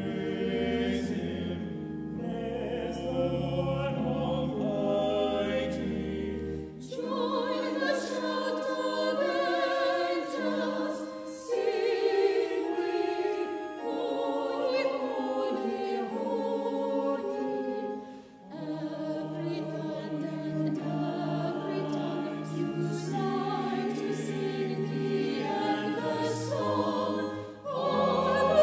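Church organ playing sustained chords over a deep bass line, then a mixed choir comes in about seven seconds in, singing a bright anthem in phrases with short breaths between them.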